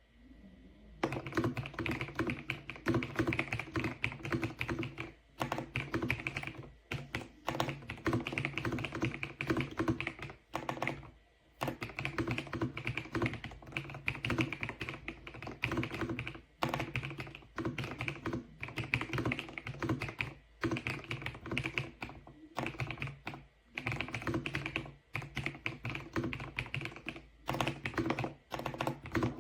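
Typing on an Ajazz AK820 Pro gasket-mounted mechanical keyboard with sound-absorbing foam: fast runs of key clacks with short pauses between them, starting about a second in.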